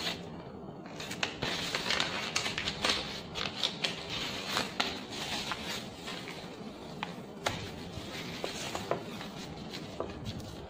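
Paper crinkling and rustling in the hands as it is pressed over the end of a plastic pipe, with short crackles and clicks from black electrical tape being unrolled and wound around it.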